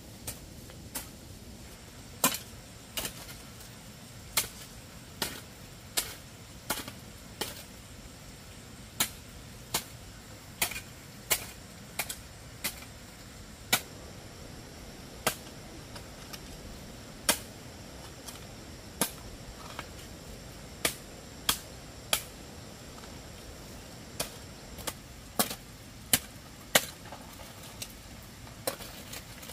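A hoe's blade chopping into lumpy red soil: sharp strikes about once a second, uneven in spacing, some coming in quick pairs.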